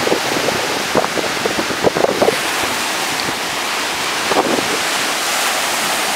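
Gulf of Mexico surf breaking and washing up the sand in a steady wash, with wind buffeting the microphone in a few short gusts.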